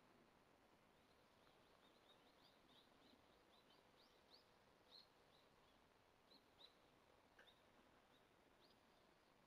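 Near silence over a faint hiss, broken by many short, high bird chirps, loudest around the middle.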